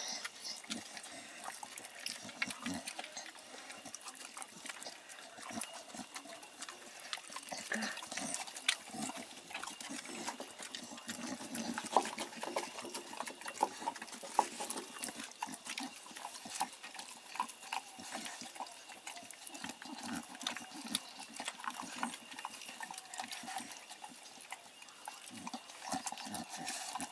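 Blue Staffordshire bull terriers eating from a hand-held plastic bowl: an irregular run of small chewing, licking and smacking sounds and clicks throughout.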